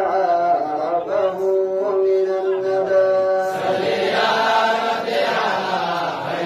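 A voice chanting a devotional praise song (nasheed) for the Prophet Muhammad, holding long, steady notes. About halfway through, the sound grows fuller and rougher.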